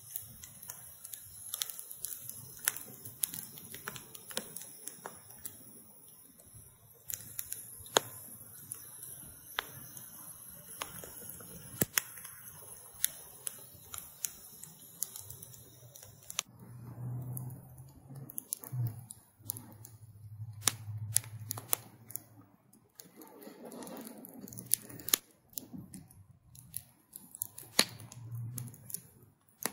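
Wood fire of branches burning in a metal grill tray, crackling with frequent sharp pops. A low hum comes and goes in the second half.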